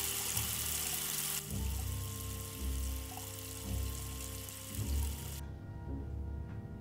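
Kitchen tap running water into a small metal saucepan in a steel sink, a loud rush for the first second and a half, then quieter until it stops about five and a half seconds in. Background music plays underneath.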